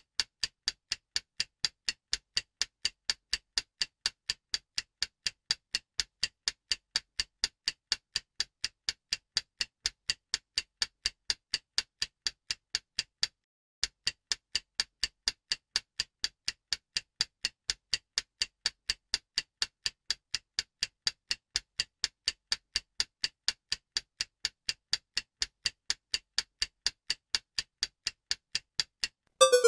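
Stopwatch ticking sound effect: a steady, even tick at about three ticks a second, pausing briefly about halfway through.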